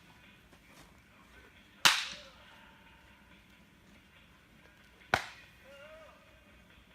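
Two sharp cracks of a baseball being struck during practice, about three seconds apart, each with a short ringing tail.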